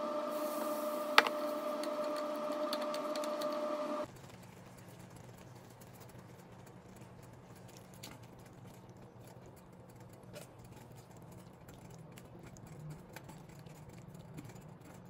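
A small motor running with a steady hum, with one sharp click about a second in. The hum cuts off abruptly about four seconds in, leaving a faint low hum with a few soft clicks.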